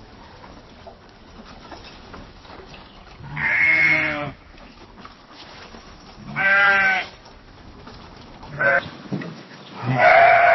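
Sheep bleating: four bleats a few seconds apart, three drawn-out calls of about a second each and one short bleat just before the last.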